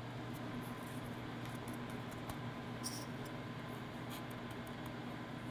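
Faint, steady room hum with a few light, scattered ticks as black sesame seeds are dropped and pressed onto rounds of dough on a metal baking pan.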